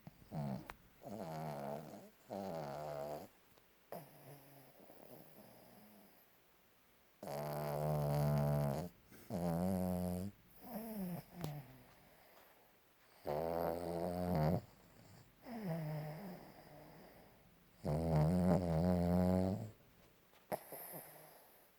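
A sleeping dog snoring: a run of pitched snores, each about a second long, some quieter and some loud, with the loudest coming in the second half.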